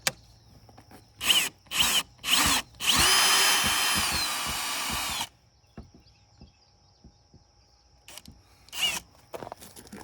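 Electric drill triggered in three short bursts, then run steadily for about two and a half seconds before winding down, with one more short burst near the end.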